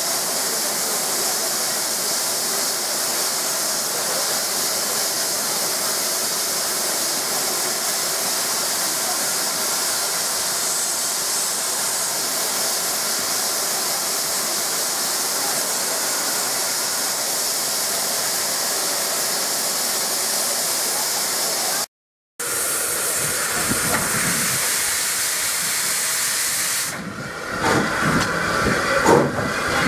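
Steam locomotives hissing steadily with escaping steam. After a short break in the sound, the hiss goes on, and from about 27 s in it is broken by a run of irregular knocks and chuffs as steam billows from the cylinders of a red Austerity saddle tank.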